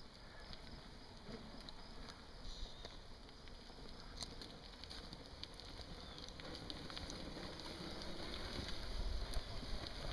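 Faint crunching and crackling of dirt and loose stones under a sport ATV's tyres and a rider's boots as the quad is walked backwards down a dirt hill, with scattered small clicks. A low wind rumble on the microphone builds near the end.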